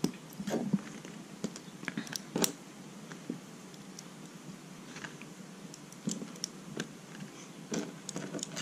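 Small plastic Lego pieces being handled and pressed together by hand: irregular light clicks and rattles, a dozen or so scattered through.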